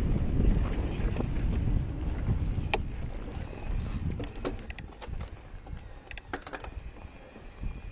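Mountain bike rolling along a dirt trail: a low rumble of tyres on the ground and wind on the microphone, louder in the first half. Scattered sharp clicks and rattles from the bike come as it goes over bumps.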